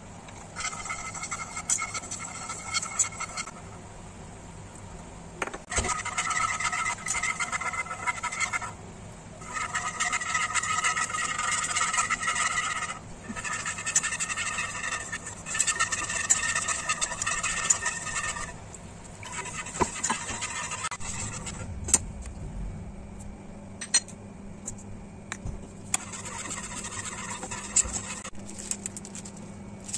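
Wire whisk scraping and stirring in a nonstick frying pan while a white sauce is cooked, in bouts of a few seconds with short pauses between them. A low hum joins about two-thirds of the way through, and a few sharp clicks follow.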